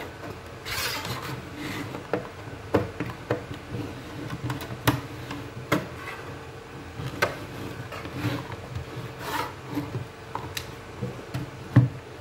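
Plastic casing of an iPhone dock clock radio being handled and worked with a small tool during teardown: irregular scrapes, rubs and clicks, with a sharper knock near the end. A faint steady hum lies underneath.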